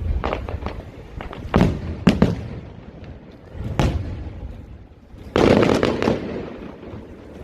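Fireworks going off: single sharp bangs about one and a half, two and nearly four seconds in, then a louder, longer burst of crackling at about five and a half seconds that fades away.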